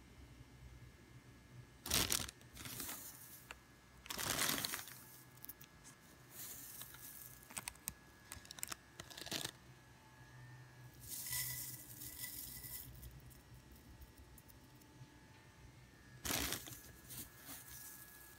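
Dried herb leaves and flowers rustling and crackling against a plastic bag as they are grabbed by hand, in several short bursts with a few small clicks between them.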